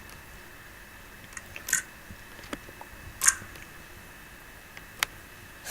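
Slime being pressed and squeezed, giving a few short crisp crackles and pops, about three, the last a sharp click near the end.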